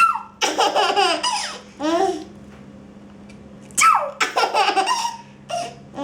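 A baby laughing in repeated bursts, with two longer bouts of laughter, one starting about half a second in and another about four seconds in.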